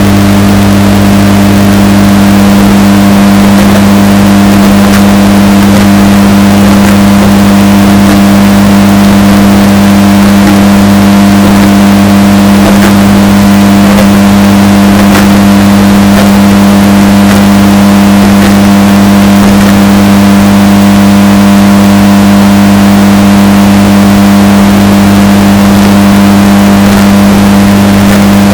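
Washing machine running with a steady, unchanging low hum, bass-boosted and heavily distorted so that it is very loud and harsh.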